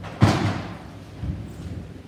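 A thump as a tray of crayons is put down on the stage floor, with a short rattle dying away after it, then a softer low knock about a second later.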